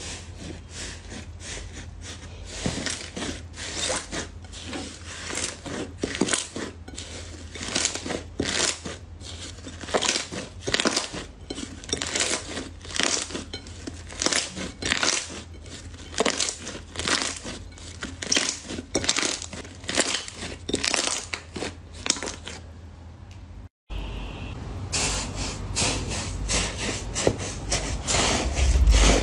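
Hands squeezing and kneading slime, giving repeated crackling squelches about one or two a second. After a short break near the end, fluffy slime being worked gives a denser, steadier crunchy rustle.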